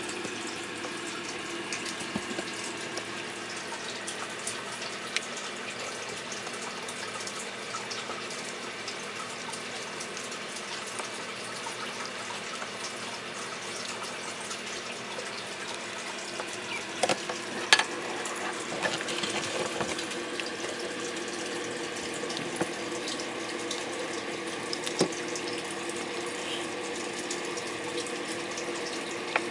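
Steady running water, with scattered sharp clicks and knocks, a cluster of them about halfway through.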